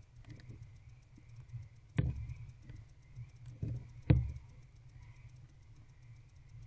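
Barn owl moving in a wooden nest box while tearing at a mouse, making sudden knocks and thumps on the box: a loud one about two seconds in, a softer one and then the loudest a moment later. A steady low hum runs underneath.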